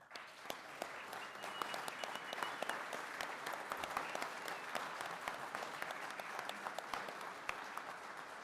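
Audience applauding at the end of a talk: dense clapping of many hands that starts at once and holds steady, easing slightly near the end.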